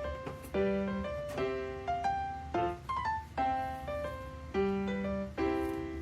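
Background piano music: a light melody of single sustained notes and chords, several a second.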